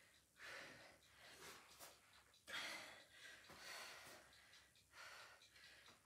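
A woman breathing hard from exertion while holding a plank: faint, hissy breaths about once a second.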